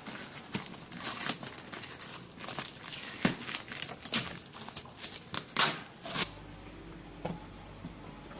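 Packaging being handled and torn open, with irregular crinkling rustles and snaps. About six seconds in this stops abruptly, leaving a steady low hum with a faint click or two.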